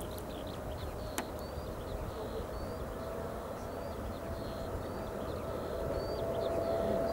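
Distant Boeing 777-300 jet airliner on final approach: a steady low engine rumble with a hum that grows slowly louder near the end. Small birds chirp repeatedly over it, and there is a single click about a second in.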